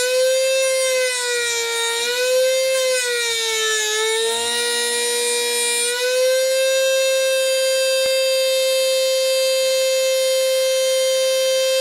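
Background music: one sustained tone that bends slowly up and down in pitch for about six seconds, then holds a steady note.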